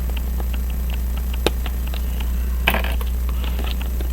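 Faint metallic clicks and scrapes of a small watchmaker's screwdriver turning out a plate screw in a pocket watch movement, with a sharper click about one and a half seconds in and a brief scrape a little later. Under them runs a steady low electrical hum.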